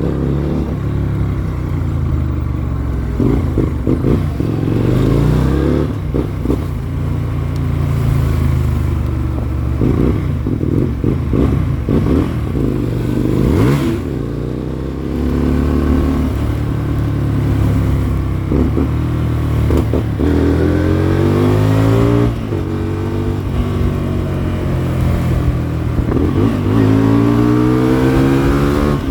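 Hyosung Comet GT250's 250 cc V-twin motorcycle engine running under way, its revs climbing and dropping several times.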